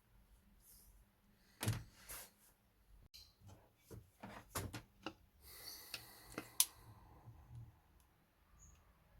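A series of light clicks and knocks from small objects being handled, with a short rustle about six seconds in.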